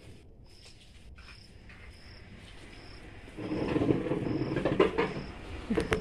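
An insect, cricket-like, chirping in short high chirps, evenly about one every three-quarters of a second. A little past halfway a louder rough noise with a few sharp clicks comes in over it.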